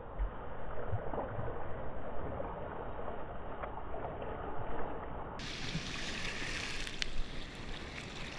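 Water sloshing and washing around a camera held at the water's surface in small, choppy surf, heard muffled at first. About five seconds in it turns suddenly brighter and fuller, with a few sharp splashes near the end.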